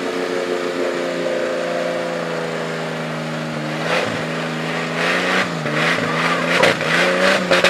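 Jeep CJ engine held at high, steady revs while the stuck off-roader spins its wheels in a deep mud pit. From about four seconds in, a rough, rushing noise comes and goes over the engine, and the engine note sags briefly twice as it takes load.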